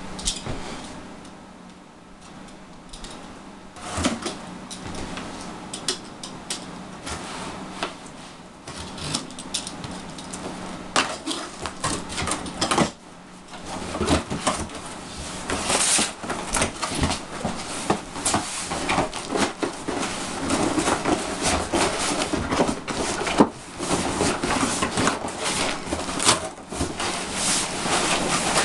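Cardboard shipping box being opened by hand: a box cutter slitting the tape, then flaps folded back and an inner cardboard box scraped and pulled out, a run of rustles, scrapes and sharp knocks that gets busier about halfway through.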